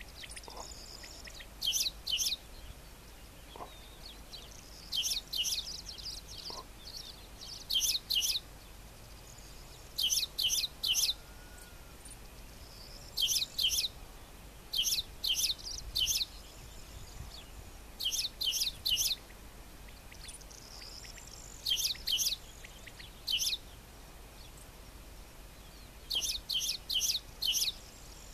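Male Spanish sparrow singing: short groups of two to four loud chirps, repeated every two to three seconds, with fainter twittering between some groups.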